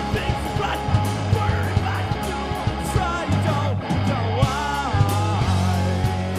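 Rock band playing live: electric guitar, electric bass and a drum kit with cymbals, going steadily through the song.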